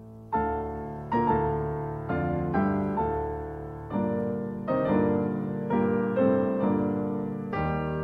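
Background piano music: chords struck every half second to a second, each ringing and fading before the next.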